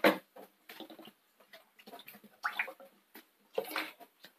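Coconut oil being poured into a heated kadai, heard as a string of short, irregular pops and gurgles, the loudest right at the start.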